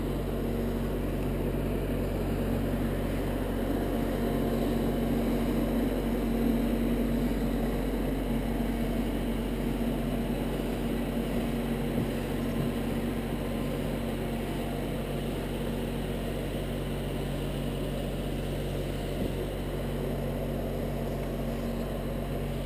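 Small boat motor running at a steady speed: a constant low hum with no change in pitch.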